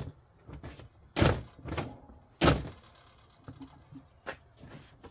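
Plastic clunks and knocks from a Cub Cadet bagger's hard plastic cover being worked onto its hinge and frame: a sharp click at the start, two loud thunks about a second and a half apart, and a few lighter taps.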